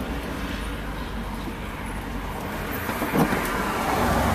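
Steady road and engine noise inside the cabin of a moving car, growing a little louder near the end.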